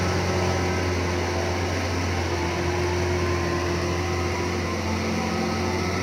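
Large mining haul truck's diesel engine running with a steady low drone.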